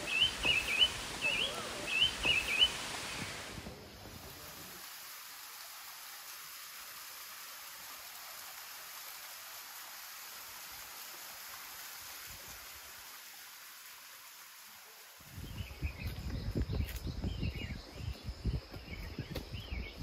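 A forest bird calling with a quick series of short chirping notes for the first few seconds, then a steady even hiss of forest ambience. About three-quarters of the way through, irregular low thumps and rustling of someone walking the dirt trail come in, with a few more bird chirps.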